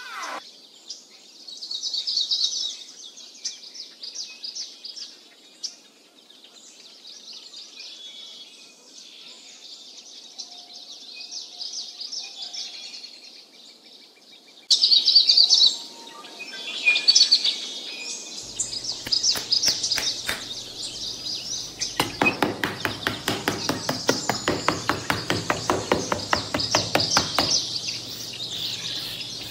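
Birds chirping steadily throughout. In the second half a small hand tool scrapes across a sand base in a quick run of repeated strokes that stops shortly before the end.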